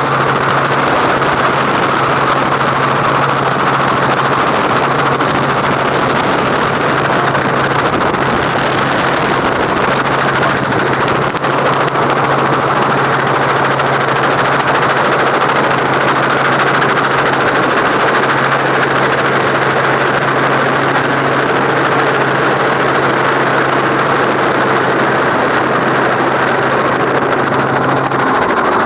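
Helicopter in flight heard from inside the cabin: loud, steady engine and rotor noise with a constant low hum.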